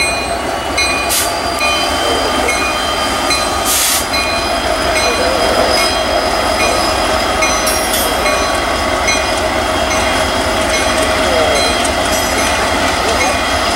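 Norfolk Southern diesel locomotives rolling slowly past at close range: a continuous engine rumble with a steady high whine over it. There are two short hisses about one and four seconds in.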